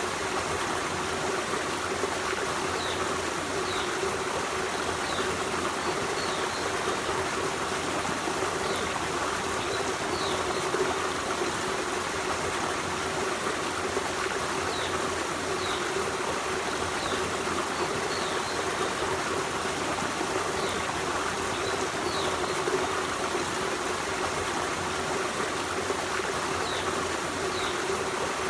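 Forest stream: water running and trickling steadily, with faint short high chirps now and then.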